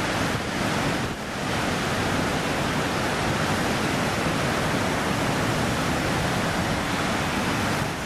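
Big storm-swell waves breaking on the shore: a loud, steady rush of heavy surf, with a brief dip about a second in.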